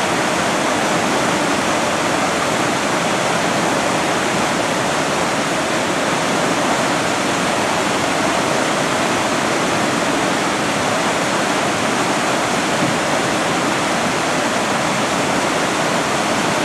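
Whitewater river rapids rushing steadily, an even wash of churning water with no break.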